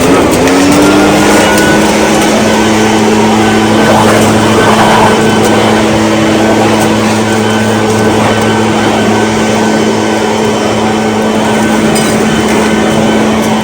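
Echo PB580T backpack leaf blower's two-stroke engine run at full throttle: a steady high engine note over the rush of blown air. It revs up in the first second, holds, and drops back right at the end.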